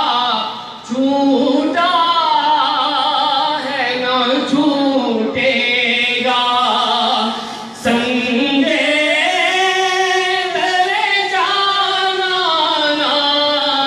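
A man reciting a naat, singing long, wavering held phrases into a microphone, with short breaths about a second in and again near eight seconds.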